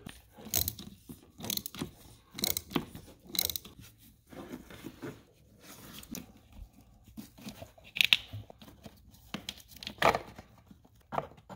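A socket wrench on a universal joint working loose a B58 engine's plastic oil filter housing: irregular clicks, knocks and scrapes of metal tool on plastic, with the loudest about eight and ten seconds in.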